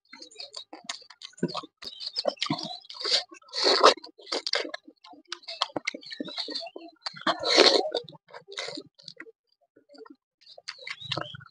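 Close-miked eating: a person chewing and smacking his lips over a mouthful of rice and boiled vegetables, in short irregular clicks, with louder bites or slurps about four seconds in and again after seven seconds.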